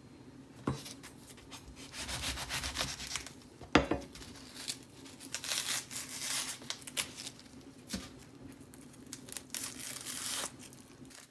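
Dry papery outer skin being peeled and torn off a new onion by hand: irregular spurts of rustling and tearing, with a few sharp knocks, the loudest about four seconds in.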